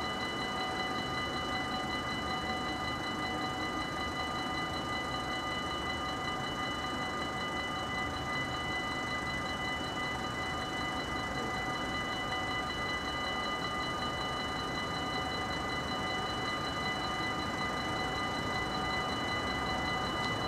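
Level-crossing warning bells ringing on and on while the barriers are down, heard as a steady ringing of several pitches over a continuous rumble.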